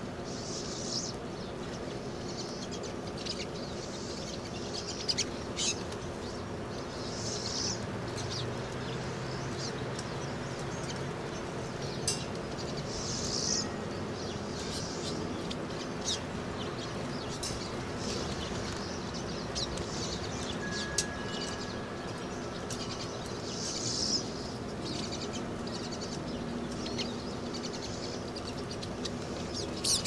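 Flock of pine siskins feeding on sunflower seed on the ground. Every few seconds there is a short, high burst of wing flutter and twittering from the birds, with scattered sharp clicks, over a steady low hum.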